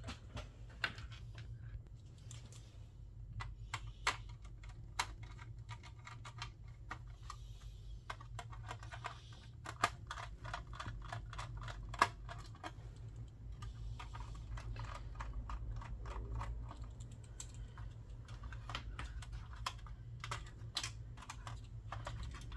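Irregular small clicks and taps of a screwdriver, screws and plastic and metal console parts being handled while a PlayStation 3 is worked on, a few sharper clicks standing out, over a steady low hum.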